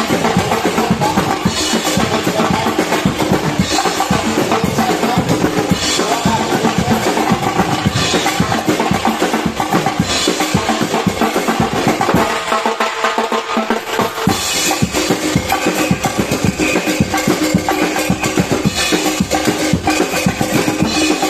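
A marching drum corps playing a fast, dense beat on snare and bass drums. The bass drums drop out briefly a little past halfway, then the drumming resumes with a pitched part playing over it.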